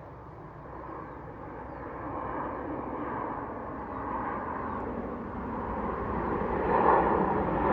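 Large jet airliner approaching overhead: its engine rumble grows steadily louder, with a rising roar that builds higher near the end.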